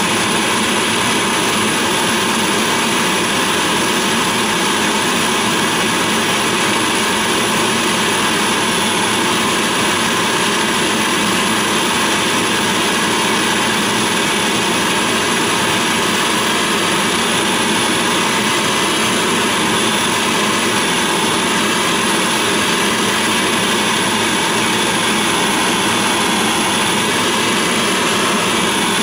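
Gas torch burning steadily, a loud, unbroken rush of flame, as it heats a copper boiler joint for silver soldering.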